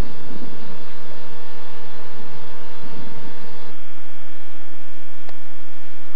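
Steady whooshing hum of a TGV Atlantique trainset standing at the platform, its equipment and ventilation fans running. A little past halfway the sound changes abruptly to a thinner, lower hum.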